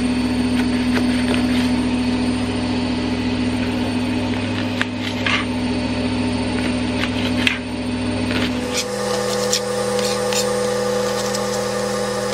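Washing machine running with a steady motor hum that shifts to a higher pitch about nine seconds in. Over it, a knife taps irregularly on a chopping board as a leek is sliced.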